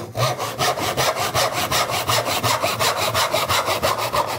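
Backsaw crosscutting a length of 2x1 pine by hand, in quick, even strokes at about five a second.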